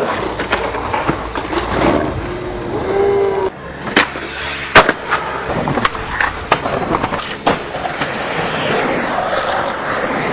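Skateboard wheels rolling on concrete, broken by the sharp clacks of the board popping and landing tricks, the loudest a little under five seconds in.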